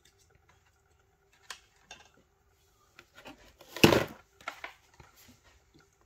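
Faint steady hum of a motorized display turntable, with scattered light clicks and one louder clatter about four seconds in, from small objects being handled.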